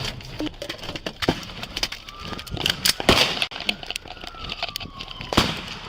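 Gunfire exchanged between a shotgun-armed suspect and police: a rapid run of sharp cracks, the loudest about three seconds in and again near the end. A police siren wails underneath.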